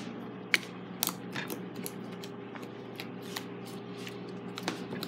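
Fluffy slime made with shaving foam being kneaded and pressed by hand, giving scattered sharp clicks and pops, about six in five seconds.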